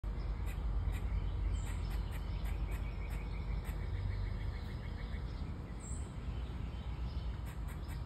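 Squirrel chattering: a quick run of short, high chirps, about five a second, over a low rumble.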